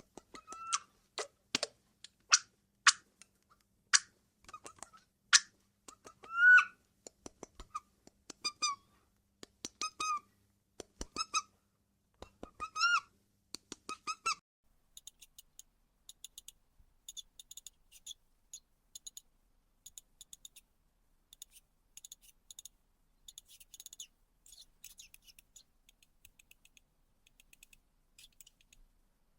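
Woolly mouse squeaks: a run of short, separate squeaks and sharp clicks, many of the squeaks bending in pitch. About halfway through they give way to much fainter, high, rapid chirps and ticks.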